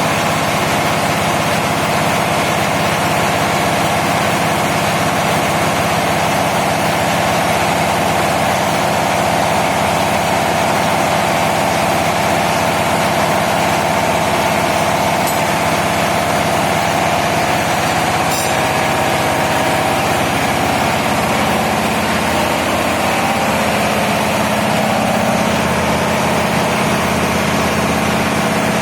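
Large diesel engine running steadily, with a constant droning note; the low part of the sound shifts slightly about two-thirds of the way through.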